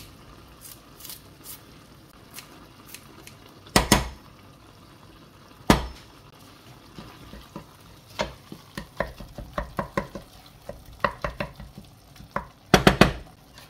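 A wooden spatula stirring minced meat in a metal saucepan: a quick run of knocks and scrapes against the pan, with single sharp clacks around four and six seconds in and a loud cluster of knocks near the end. A few faint snips of kitchen scissors cutting fresh herbs come first.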